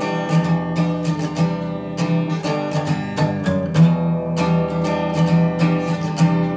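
Acoustic guitar strummed in a steady rhythm, each chord ringing on between strokes.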